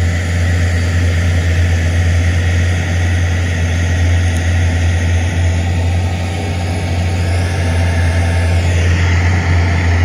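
Crawler bulldozer's diesel engine running with a steady low drone.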